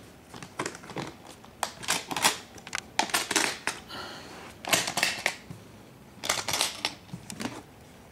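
Zipper on a Gibson guitar case being pulled open in several short, scratchy runs.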